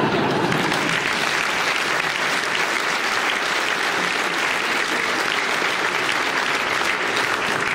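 Audience applauding: it starts suddenly, holds steady for several seconds and dies away near the end.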